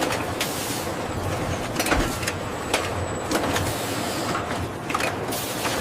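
Factory machinery running steadily, with scattered sharp clicks and knocks.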